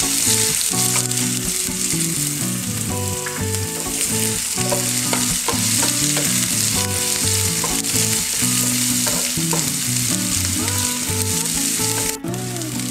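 Chopped onion, garlic, ginger and green chilli sizzling in hot oil in a frying pan, stirred and scraped with a wooden spatula. A soft run of held musical notes plays underneath, and the sound briefly drops out near the end.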